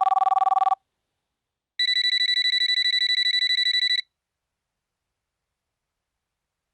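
Telephone ringing: a lower two-tone trill breaks off under a second in, then a higher-pitched warbling ring sounds for about two seconds.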